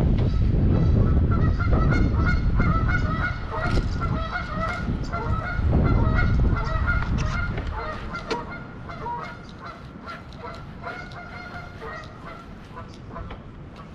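A flock of geese honking, many short overlapping calls throughout. Wind buffets the microphone heavily for the first half and eases about eight seconds in.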